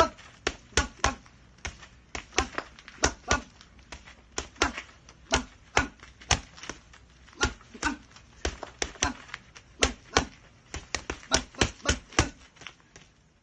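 A boxer's punches landing in quick combinations: sharp smacks about three to four a second, some in fast bunches of two or three, a few with a short dull ring after the hit.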